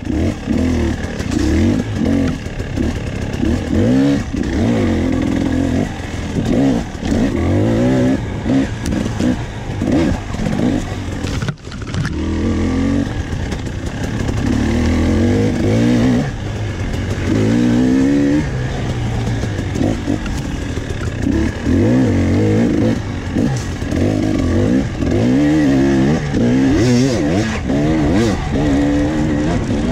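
Dirt bike engine being ridden hard, its pitch climbing and falling over and over with the throttle, with a brief cut in the sound about a third of the way in.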